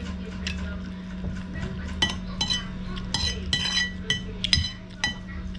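Metal spoon clinking and scraping against a ceramic plate while scooping food, a quick run of ringing clinks from about two seconds in until near the end. A steady low hum runs underneath.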